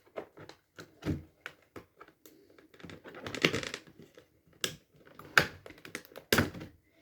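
Plastic blister packaging and cardboard of a boxed action figure being handled and pried at: irregular clicks, taps and crinkles, a few sharper ones in the second half.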